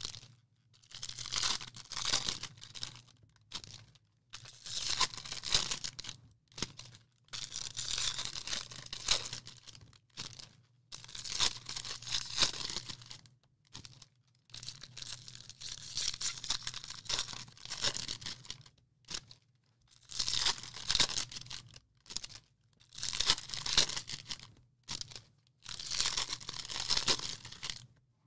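Sports card pack wrappers being torn open by hand and crinkled: a run of short rips and rustles, one every second or two, with brief pauses between.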